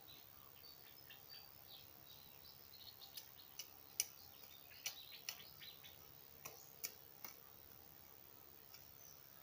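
Faint birds chirping and twittering, with a run of sharp clicks between about three and seven seconds in, the loudest about four seconds in.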